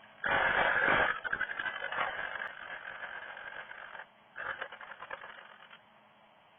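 Lathe duplicator's cutter biting into a spinning Accoya pine blank: a loud, rough cutting rasp that starts just after the beginning and fades over about four seconds, then a second, shorter cut about four and a half seconds in.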